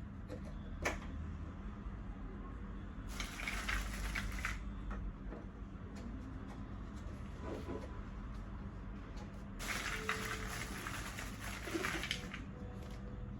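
Plastic high-chair parts being handled and fitted together: a sharp click about a second in, then two stretches of scraping noise, the second one longer.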